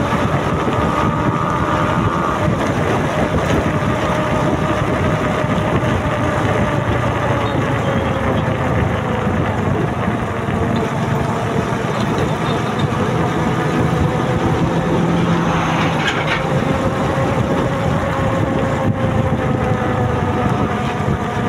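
Motorcycle engine running at cruising speed under steady wind and road noise, heard from the rider's seat, with a faint whine that drifts slowly up and down in pitch.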